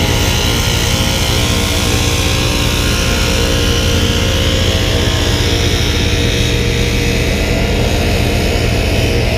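Exmark Vantage stand-on mower engine running steadily while the mower is driven up a ramp into an enclosed trailer.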